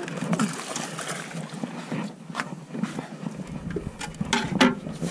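Scattered scuffs and knocks on the metal floor of an aluminium fishing boat as someone shifts his feet and moves around, with a few sharper clicks about halfway through and near the end.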